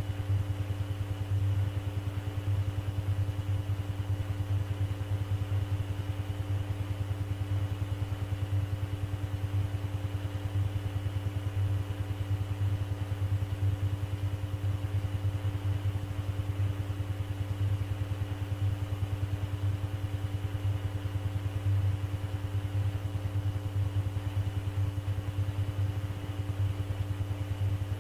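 Steady background hum of an air traffic control tape recording while nobody is transmitting: a low hum with a few thin steady tones above it, unchanging throughout.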